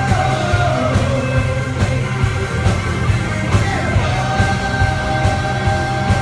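Live blues-rock band playing loudly: two electric guitars, bass and a steady drum beat. Long held notes bend down in pitch, with singing at the mic.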